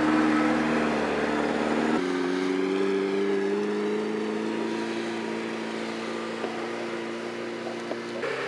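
Lada Niva 4x4's engine pulling steadily at moderate revs while climbing a dirt slope off-road. The engine note changes abruptly about two seconds in, then holds steady with a slight rise and slow fade.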